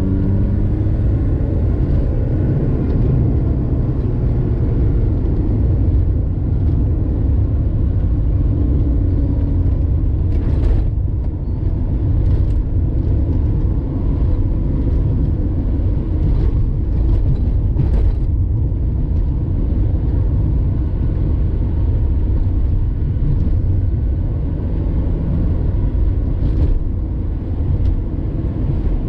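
Car engine and road rumble heard from inside the cabin while driving, steady and low, with the engine note shifting in pitch in the first few seconds. A few brief clicks or knocks come through in the middle stretch.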